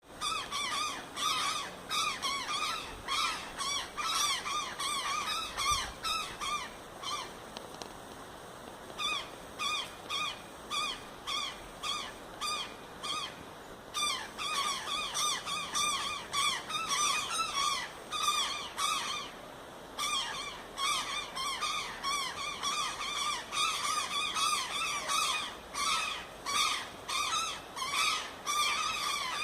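Rapid, continuous series of short squeaky calls from forest animals, several a second, with a brief lull about eight seconds in.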